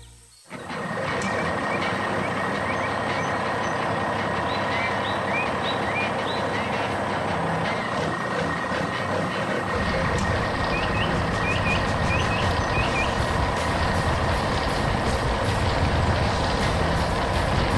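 Heavy truck engine running steadily; its low rumble gets heavier about ten seconds in. A few short bird chirps are heard over it.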